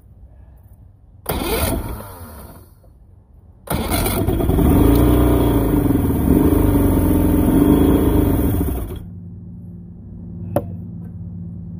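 Carbureted Mercury two-stroke outboard being cranked: a short crank about a second in, then from about four seconds in it catches and runs unevenly, its pitch rising and falling, for about five seconds before cutting out. It is being run to empty its carburetors of fuel.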